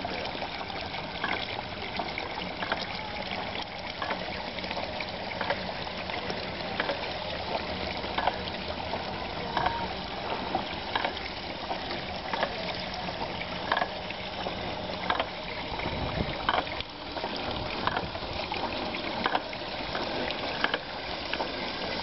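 Drilling mud trickling and splashing as it circulates out of a water-well borehole into the mud pit. Under it runs a steady machine hum, with a short knock repeating about every one and a half seconds.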